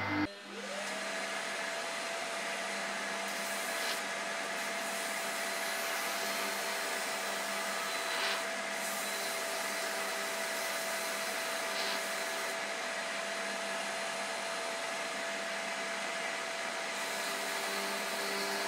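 Vacuum dust extraction switching on right at the start, its motor spinning up to a steady whine with a strong hiss of air and then running steadily. Under it is the quiet steady hum of a homemade plywood spindle drum sander.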